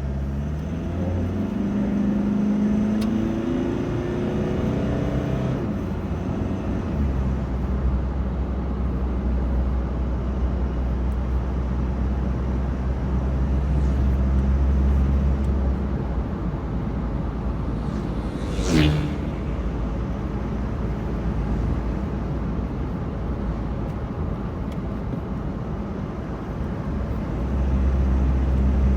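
Car engine and road noise while driving. In the first few seconds the engine pitch rises as it accelerates, then drops, as at a gear change, before settling into a steady cruise. A brief sharp noise comes about two-thirds of the way through.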